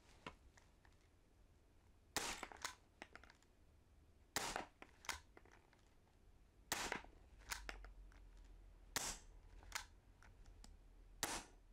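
CZ 75 SP-01 Shadow CO2 airsoft pistol fired five times at an even pace, about every two and a quarter seconds, into a chronograph; each sharp shot is followed by a fainter click.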